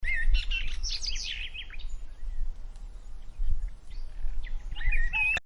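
Birds chirping in quick, short calls, most of them in the first two seconds and again just before the end, over a steady low outdoor rumble.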